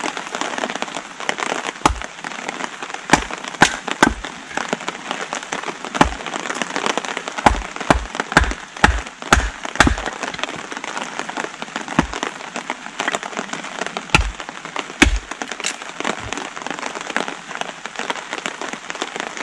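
Hatchet chopping small wet branches into kindling on a wooden chopping stump: about fifteen sharp strikes, with a quick run of about two a second in the middle. Heavy rain falls steadily throughout.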